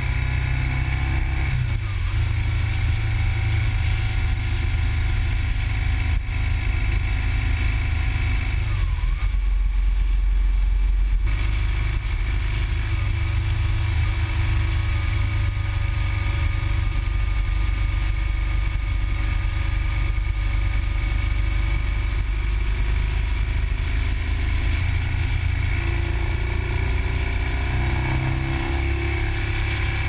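Motorcycle engine running steadily at road speed, heard from on board, with a brief change in its note about nine to eleven seconds in.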